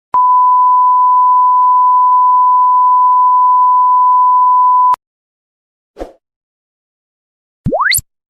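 A steady pure beep tone at about 1 kHz, held for nearly five seconds and cut off sharply: the classic censor bleep sound effect. About six seconds in comes a short dull blip, and near the end a quick rising whistle sweeps up steeply in pitch.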